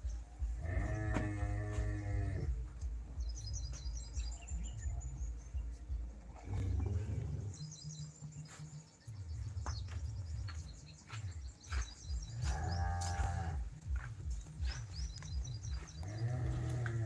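Dairy cows mooing, four separate long moos spaced several seconds apart, with small birds chirping between them over a low rumble.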